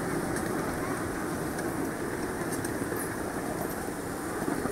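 Ride-on park train running steadily along its track, heard from aboard as an even rolling noise of the cars and wheels.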